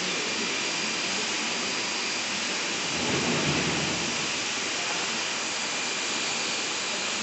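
Metal coil slitting line running: a steady hiss of machine noise with a faint high whine, and a brief low rumble about three seconds in.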